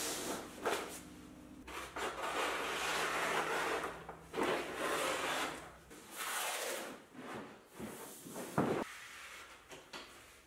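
Stiff brown floor-protection paper being unrolled and slid across a floor, rustling in a series of long swishes. A short, sharp rip stands out near the end.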